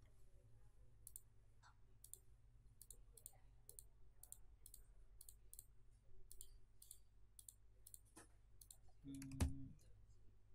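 Computer mouse clicking: a run of about twenty short, sharp clicks at an uneven pace, some in quick pairs, over a quiet background. A little past nine seconds in comes a louder, dull thump.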